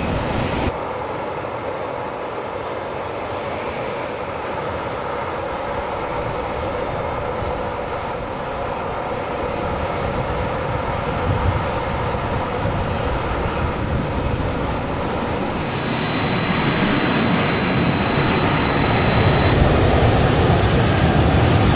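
Boeing 747-400 jumbo jet's four Rolls-Royce RB211 turbofan engines at take-off power, a steady jet noise that grows louder in the last third as the aircraft rolls and lifts off. A thin high whine sounds for a few seconds past the middle.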